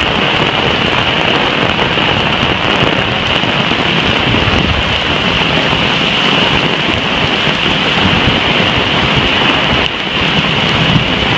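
Torrential rain pouring down, a loud, steady hiss, with gusts of wind rumbling low underneath.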